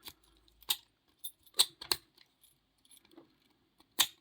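Marksman 60mm padlock and its key being handled: a series of sharp metal clicks and clinks, about six in all, the loudest about one and a half seconds in and near the end.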